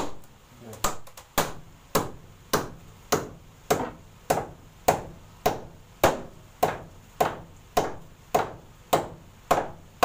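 Hammer blows on a wooden wall cabinet: a steady run of sharp strikes, a little under two a second.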